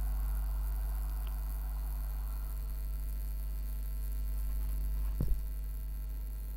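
Steady electrical mains hum with a faint hiss, broken once about five seconds in by a single short click.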